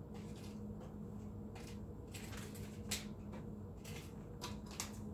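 Faint rustles and a few light clicks of small plastic bags and toolkit pieces from a diamond painting kit being handled, with a sharper click about three seconds in, over a steady low hum.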